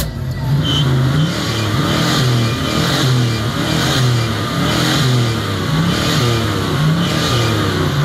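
1972 Ford Mustang's engine revved repeatedly while parked, its pitch rising and falling about once a second.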